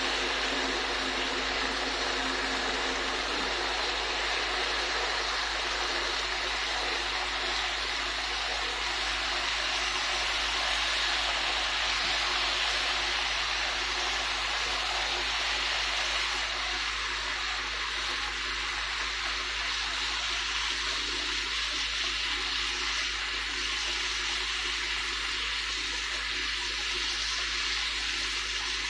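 Marinated pork belly slices sizzling steadily in a nonstick frying pan, easing slightly about halfway through.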